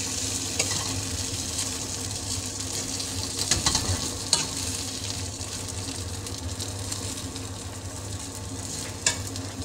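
Idli cubes being stirred in hot oil and masala paste in a metal pan: a steady frying sizzle, with the steel spoon scraping and knocking against the pan a few times.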